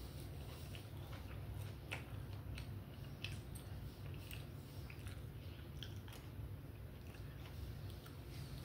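A person chewing and biting food close to the microphone: soft, irregular wet mouth clicks and smacks, over a low steady hum.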